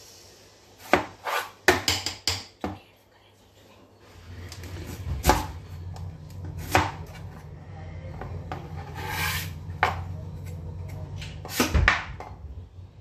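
Knife chopping vegetables on a cutting board: a quick run of about seven sharp chops in the first few seconds, then a few single knocks over a steady low hum.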